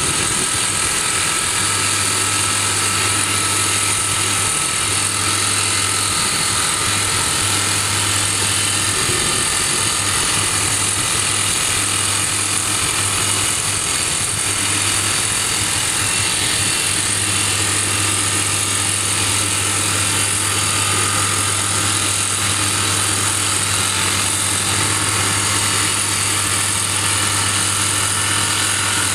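Soosan STD14E top-hammer drill rig drilling rock: its TD45 hydraulic drifter hammers and rotates the drill steel continuously over the rig's steady engine.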